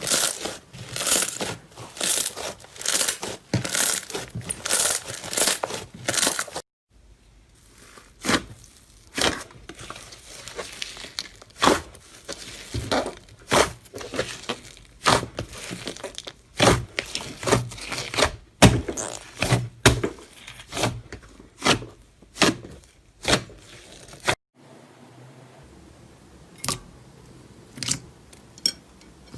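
Slime being squeezed and pressed by hand, making a quick run of sticky pops and crackles. These thin out into scattered pops and clicks after a cut about seven seconds in, and turn to fainter clicks near the end.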